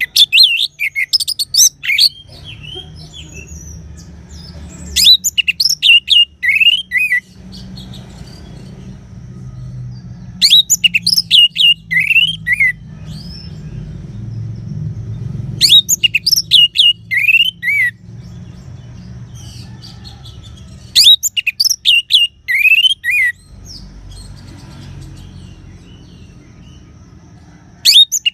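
A songbird, locally called burung bunglor, singing loud phrases of rapid high chirps and falling whistles, each about two seconds long and repeated roughly every five seconds.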